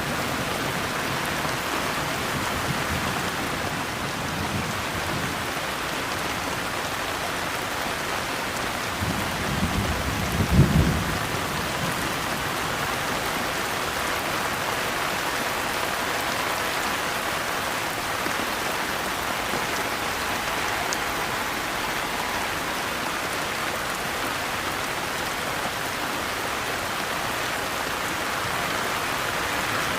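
Steady rain falling, with a low rumble of thunder about ten seconds in.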